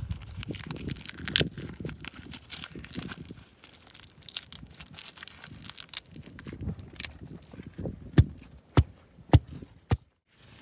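Fresh green leaves rustling and crinkling as hands fold and press them into a tight wrap, with scattered crackles. Near the end come four sharp clicks about half a second apart as the leaves are squeezed and creased.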